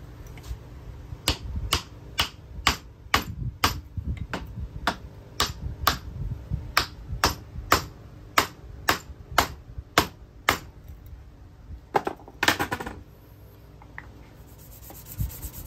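Sharp knocks of tapping on a wooden block to drive a Nikko 24V starter motor's armature and its bearing down into the housing: about twenty even blows, roughly two a second, then a quick short flurry near the end.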